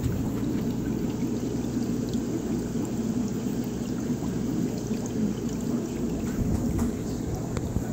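Aquarium aeration: streams of air bubbles rising and breaking at the water surface of tropical fish tanks, a steady bubbling and splashing over a steady low hum.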